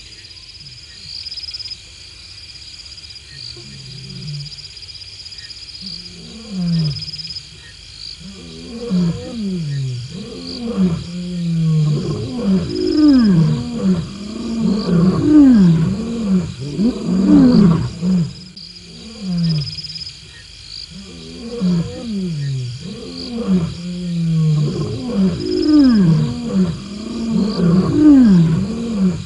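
Lions roaring in a bout that starts with a few low moans and builds into a run of full roars, one after another. It breaks off briefly about two-thirds of the way through, then starts again. Crickets chirp steadily in the background.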